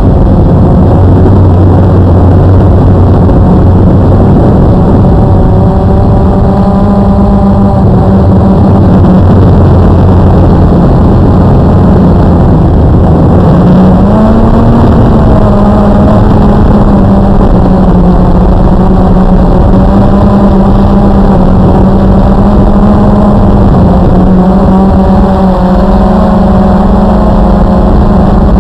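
Blade 350 QX2 AP quadcopter's electric motors and propellers running in flight, loud and close on the onboard camera: a steady buzzing hum over a rush of air. The pitch rises slightly about 14 seconds in.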